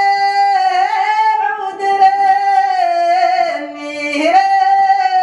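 A woman singing a Tunisian folk song, holding a long drawn-out note. The note steps down in pitch twice and then rises again about four seconds in.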